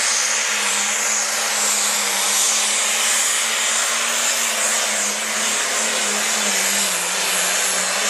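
Light Pro Stock pulling tractor's diesel engine running flat out under full load as it pulls the weight sled, a loud, steady mechanical noise whose engine note sags slightly over the last few seconds.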